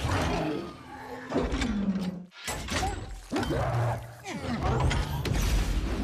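Superhero-film fight sound design: the Hulkbuster armour's mechanical whirring and clanking, with crashes and debris, over the film's score. The sound cuts out abruptly for a moment a little over two seconds in.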